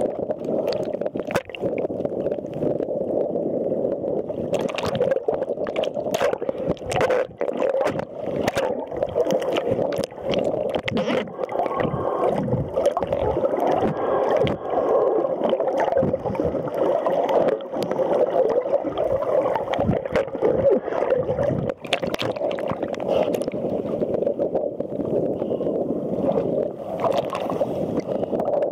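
Muffled sloshing and gurgling of sea water, picked up through a waterproof camera's sealed body while it is held underwater, with scattered sharp clicks and knocks throughout.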